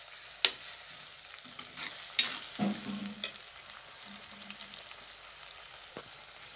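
Sliced onions and green chillies sizzling in hot oil in a chatti while a steel spoon stirs them. A few sharp clicks of the spoon against the pot, about half a second, two seconds and six seconds in.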